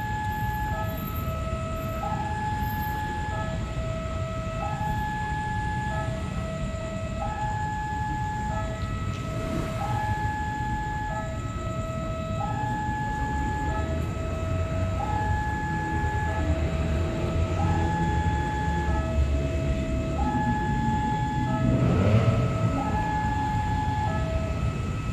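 Two-tone electronic warning alarm, like an Indonesian railway level-crossing alarm, sounding over and over: a higher tone then a lower one, repeating about every two seconds. Beneath it a diesel locomotive's low rumble grows louder from about halfway, peaking with a rising sweep near the end.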